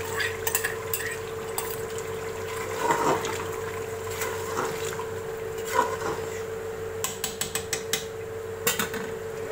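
Metal spoon stirring yogurt into mutton curry in an aluminium pressure cooker, clinking and scraping against the pot's sides, with a quick run of clinks about seven seconds in.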